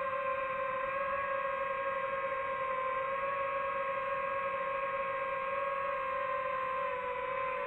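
DJI FPV drone's motors and propellers whining at a high, nearly steady pitch in flight.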